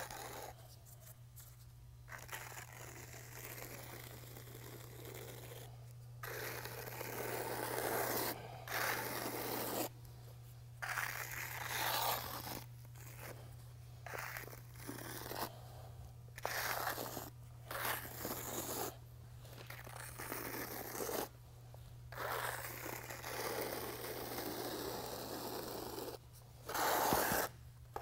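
Notched steel trowel scraping as it spreads self-leveling epoxy over concrete: repeated strokes of a second or two each, with short pauses between.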